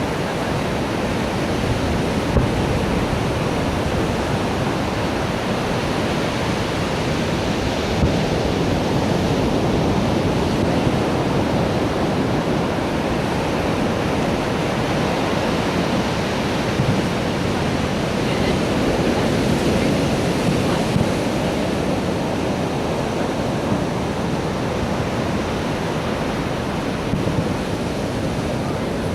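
Steady rushing noise, like surf or wind, with a few brief faint knocks scattered through it.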